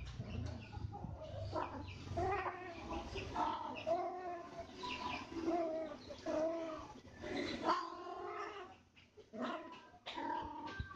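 Domestic cats caterwauling while mating: a run of drawn-out, wavering yowls, one after another, with a brief lull about nine seconds in.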